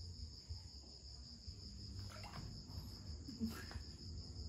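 Crickets chirping in a continuous, steady high trill.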